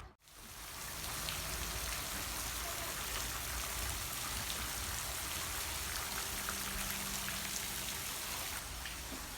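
Rain falling: a steady hiss of rain with scattered small drop ticks, starting abruptly just after the beginning.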